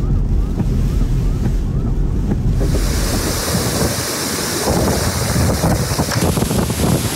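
Hurricane wind. First a low rumble of wind and road noise heard from inside a moving car, with a faint chirp repeating about twice a second. Then, about three seconds in, a sudden change to a loud, steady rush of wind blowing hard through trees.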